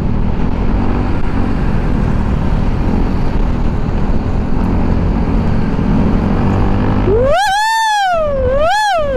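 Wind and engine noise of a moving motorcycle, then, about seven seconds in, a high wordless 'woo-hoo' yell that rises, dips, rises again and falls away.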